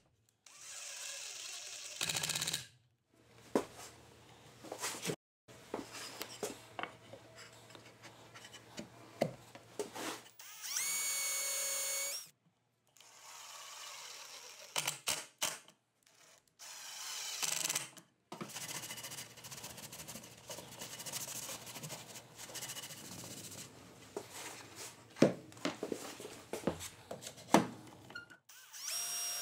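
Short bursts of a Milwaukee cordless drill driving screws into wood, with its motor whining up to speed once a little before the middle. Between the bursts come clicks and knocks of wood and tools being handled, and the sound breaks off abruptly several times.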